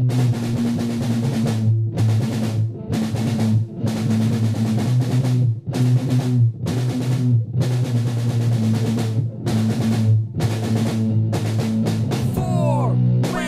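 Heavy rock music: a drum kit pounding out a steady beat over a sustained bass and guitar, with a pitch-bending lead line coming in near the end.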